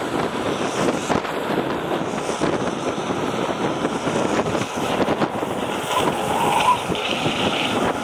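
Wind rushing over the microphone and the rolling noise of longboard wheels on asphalt at downhill speed, with a brief thin squeak about six to seven seconds in.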